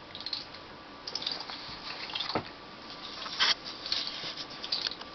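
A young boy imitating a squirrel with his mouth: quick clicking and squeaky chatter in several bursts, loudest a little past the middle.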